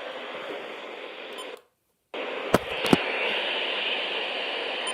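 Static hiss from a weather radio receiver. It cuts out to silence for about half a second a little over a second and a half in, then comes back brighter with two sharp clicks.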